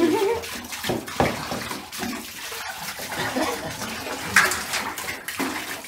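Water poured from a jug over a wet German Shepherd in a bathtub, splashing and running off his coat in uneven surges. One sharper, louder splash comes about four and a half seconds in.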